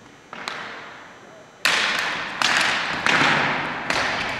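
A series of five sharp knocks, each ringing on with a long echo. They come about a quarter second in, then roughly every three-quarters of a second from about 1.6 s. They are the sound of ball hockey play: the ball and sticks striking the rink boards in a large hall.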